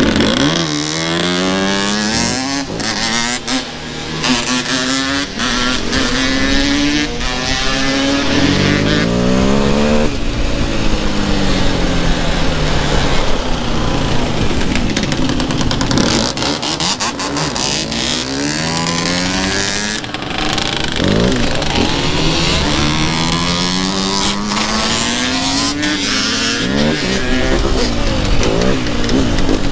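KTM dirt bike and ATV engines accelerating, the pitch climbing through each gear and dropping back at every shift, several times over.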